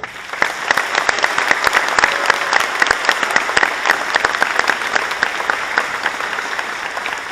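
Audience applauding: dense clapping that starts suddenly, with sharp, loud claps from people close by.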